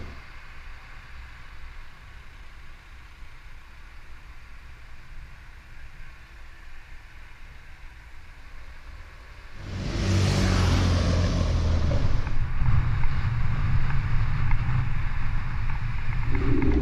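Low traffic rumble while the bicycle stands at the lights, then, about ten seconds in, loud wind rush on a helmet-mounted camera's microphone as the rider moves off. A steady low hum joins near the end.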